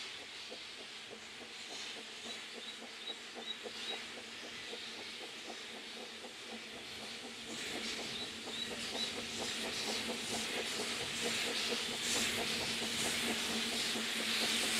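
Narrow-gauge steam locomotive working a train, a steady hiss of steam with rapid rhythmic clatter, growing louder toward the end as it draws near.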